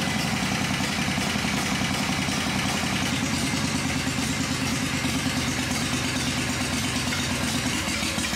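1981 Harley-Davidson Shovelhead V-twin engine idling steadily with its new camshaft. The engine still has the small tick that the new cam did not cure, which the owner traced to worn rocker arm bushings.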